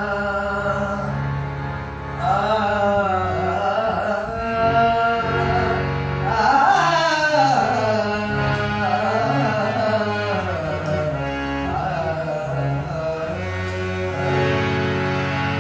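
A man singing a Hindi film song live, his voice sliding and wavering between notes, over a dholak drum and steady held instrumental notes. The voice comes in about two seconds in.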